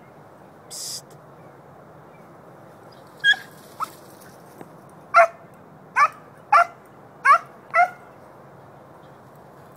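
Dog whining in a string of short, high-pitched yelps, about seven of them starting about three seconds in, the excited cries of a dog trying to get at a rabbit hidden in a bush.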